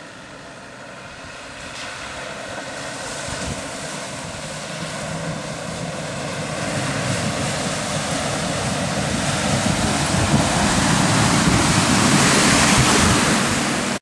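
Land Rover 4x4 fording a river: water surging and splashing around the wheels and bow wave, with its engine running underneath, growing steadily louder as it comes closer.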